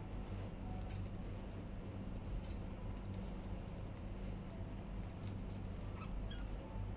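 Budgies nibbling lettuce: scattered small sharp clicks and crunches of beaks on leaves, over a steady low hum.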